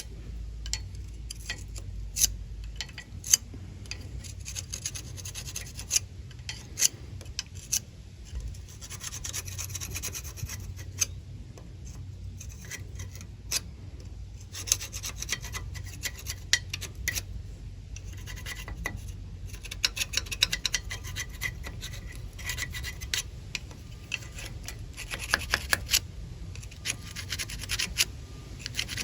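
Hand cleaning of brake parts: irregular scraping and rubbing, with scattered sharp clicks and taps from metal parts being handled.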